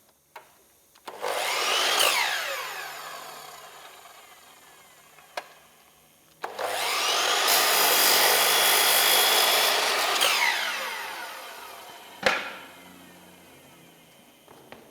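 Electric saw cutting MDF strips in two runs. The first starts about a second in and winds down with a falling whine. The second, longer run starts about six seconds in, cuts for a few seconds, then winds down, and a sharp knock follows near the end.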